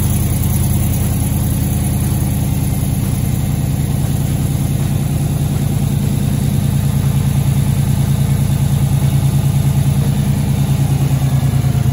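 GM Gen V LT truck engine idling steadily, just after its first start with the brake vacuum pump removed and its port sealed by a delete plate.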